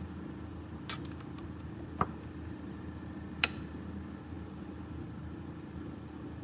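A spoon clicks sharply against a glass mixing bowl three times while scooping batter, about one, two and three and a half seconds in, the last click the loudest. Under it runs a steady low hum.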